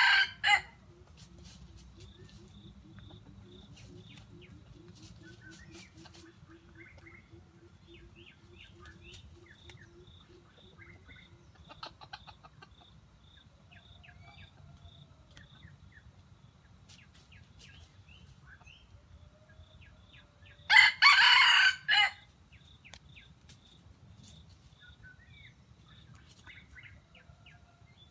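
A junglefowl rooster crows once, a short loud crow lasting a little over a second, about two-thirds of the way through; the end of another crow is heard right at the start. Faint small bird chirps fill the gaps.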